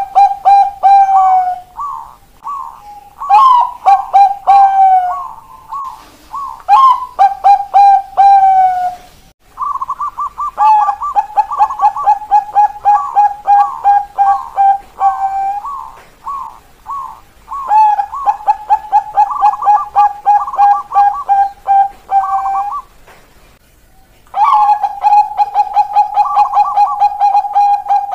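Bangkok-bred zebra doves (perkutut) cooing: long phrases of quick, repeated short coos, the 'keok kok kok kok' of the breed, separated by short pauses. Song of this kind is played as a lure to get reluctant perkutut to start singing.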